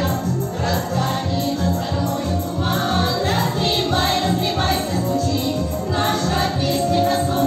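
A group of voices singing a song together over instrumental accompaniment with a steady beat.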